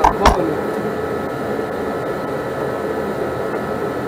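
Two sharp knocks right at the start, then a steady mechanical whir and hiss of running machinery.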